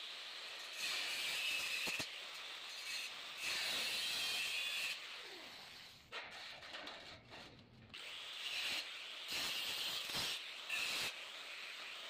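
Angle grinder with a cut-off disc cutting V-notches into a galvanised steel ladder-type cable tray. It runs in several short cuts that grow louder while the disc bites the steel, with a quieter gap of about two seconds in the middle.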